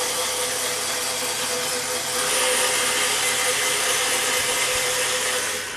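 Battery-powered DC gear motor running steadily, with one even tone, as it drives a B9 robot arm's claw carriage back in. It cuts off suddenly at the very end when the carriage hits its limit switch.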